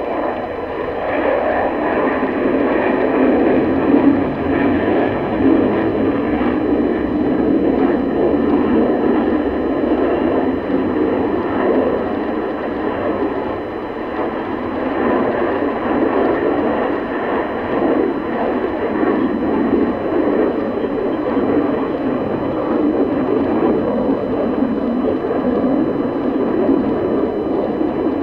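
Twin jet engines of a Sukhoi Su-30 fighter running at high power during aerobatic manoeuvres: a steady, loud rushing roar that swells and eases a little.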